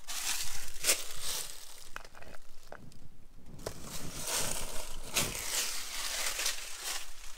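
Dry fallen leaves crunching and rustling in irregular swells, with a short lull about three seconds in.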